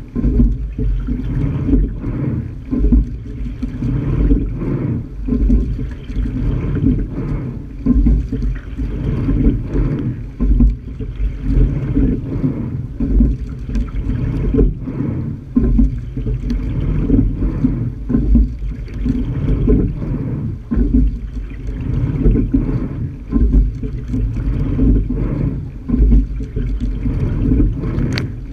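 Water rushing along the hull of a single sculling shell under way, heard from its bow deck as a low, uneven rumble that swells and fades every second or two.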